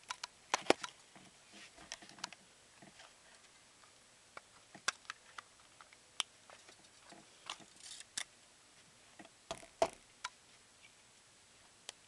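Irregular sharp plastic clicks and taps as the body shell of a toy RC car is unclipped and lifted off its plastic chassis and the parts are handled.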